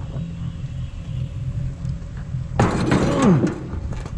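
A boat motor idles steadily. About two and a half seconds in, there is a sudden loud clatter with a short falling squeak.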